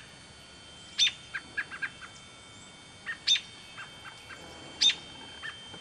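American robin fledgling calling: three loud, short, sharp calls spaced about one and a half to two seconds apart, with fainter quick chirps between them.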